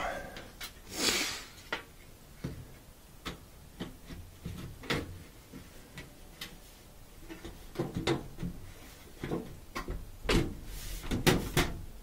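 Washer's rear cover panel being fitted back onto the cabinet: a scraping slide about a second in, then scattered clicks and knocks as the panel is handled and pressed into place, coming thicker near the end.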